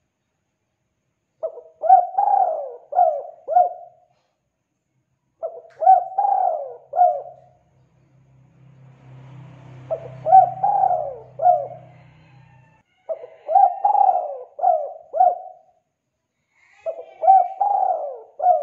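Spotted dove cooing: five phrases a few seconds apart, each a quick run of four or five coos.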